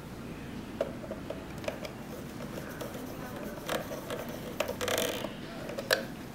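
Small screwdriver tightening the screws of a plastic screw-terminal block on a wiring controller: a scatter of light clicks and ticks, busiest between about four and six seconds in.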